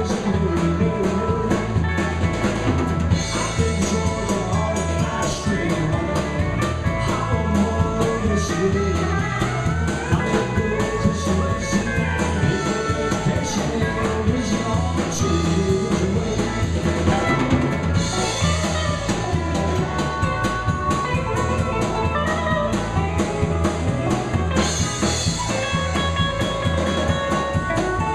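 Live country band playing a song: a drum kit keeps a steady beat under electric bass, acoustic and electric guitars and pedal steel guitar. The cymbals swell brighter twice in the second half.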